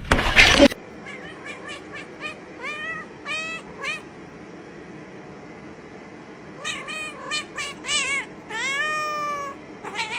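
Cat meowing: a quick series of short, high meows, a pause of about two seconds, then more meows, including one longer drawn-out meow near the end. A brief loud burst of noise comes at the very start.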